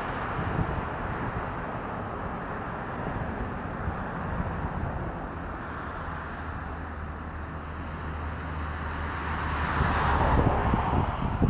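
Road traffic with wind on the microphone, with a low steady engine hum in the middle; a vehicle passes and is loudest near the end.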